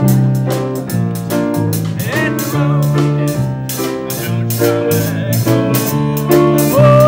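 Live band playing a bluesy number, with a keyboard bass line and drum kit keeping a steady beat, and a voice singing a short phrase about two seconds in.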